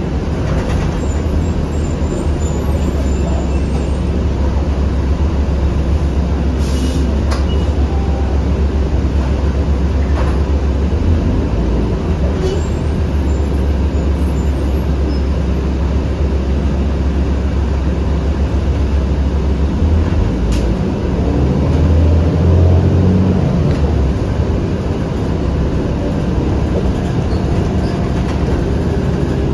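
Cabin sound of a 2008 New Flyer D40LF diesel city bus under way: a steady low drone of engine and road noise with a few knocks and rattles. The low drone shifts about twenty seconds in and swells louder a couple of seconds later.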